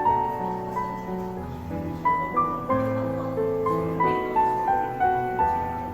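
Background piano music, a gentle melody of single notes over held chords.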